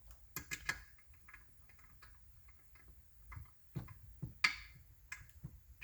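Scattered small clicks and taps of metal parts and screws being handled while fitting an oil pump and its diaphragm onto a chainsaw, with a quick cluster of three clicks about half a second in and a sharper tap near the end.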